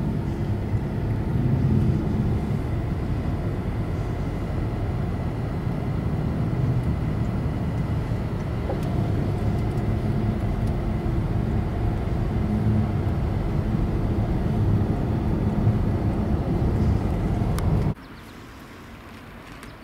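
Steady road and engine noise inside a moving Chevrolet's cabin, a low rumble. It drops away suddenly near the end to a much quieter hiss.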